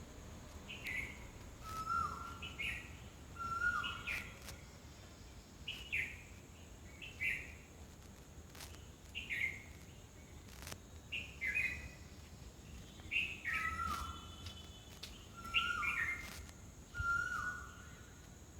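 A bird calling over and over: short, quickly falling notes about once a second, answered now and then by a lower note that holds briefly and then drops.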